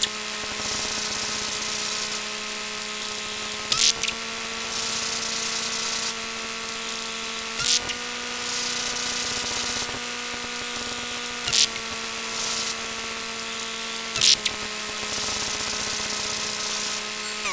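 2006 Sony Handycam camcorder giving off a steady electrical hum of several held tones over a hiss. A sharp click comes about every four seconds, and after each one the hum shifts slightly in pitch.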